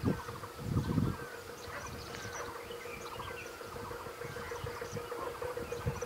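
Small birds chirping in many short, mostly falling calls over a steady hum, with a brief low rumble about a second in.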